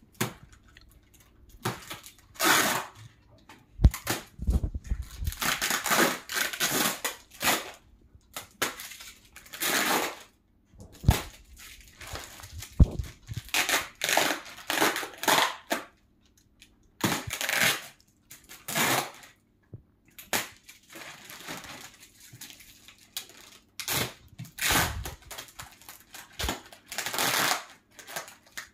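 Clear plastic stretch wrap being torn and pulled off a cardboard box by hand, crinkling and tearing in irregular bursts with short pauses between them.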